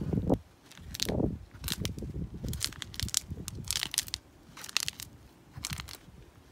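Sandalled footsteps on concrete crunching through a carpet of fishflies (mayflies). Each step gives a short, dry crackle of insects being crushed, about once a second.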